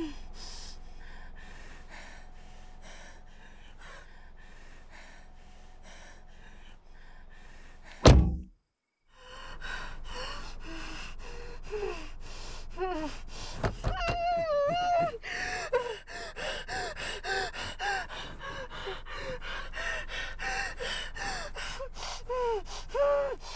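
A woman sobbing with gasping breaths, then one loud thump about eight seconds in followed by a moment of dead silence. Her crying then comes back as high, wavering whimpers and wails.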